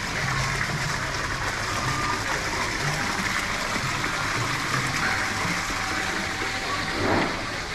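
Small garden fountain splashing steadily into a koi pond, an even rushing of falling water. A short louder burst rises over it near the end.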